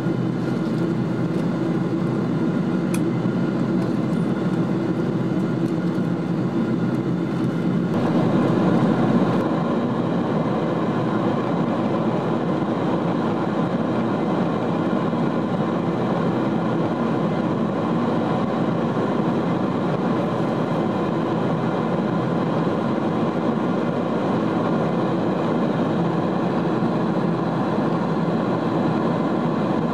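Steady cabin drone of a Boeing 777-200 in cruise, engine and airflow noise heard from a window seat beside the wing. It swells briefly for a second or so about eight seconds in.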